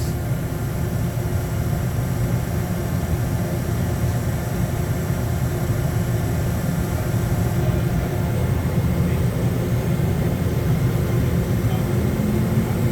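Steady hum and hiss of a Mazak Integrex i-150 CNC lathe and shop running. Near the end a spindle motor starts spinning up with a slowly rising whine: the B-axis milling spindle accelerating toward its 20,000 RPM top speed.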